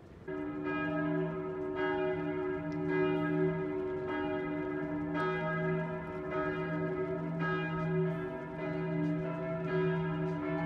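Church tower bells pealing: several bells of different pitches ring on together, with a fresh strike about every second.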